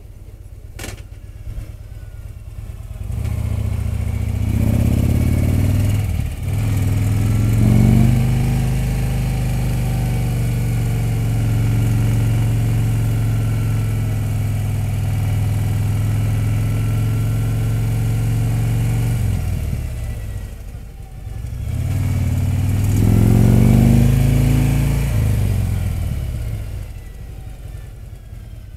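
Motorcycle engine heard from the rider's seat while riding up a mountain road. It is quieter at first, revs up about three seconds in and runs steadily, eases off around twenty seconds, revs up again, then eases off near the end.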